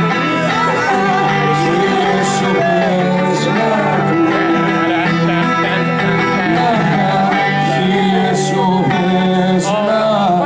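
A live song through small amplifiers: an acoustic guitar being played under a sung vocal.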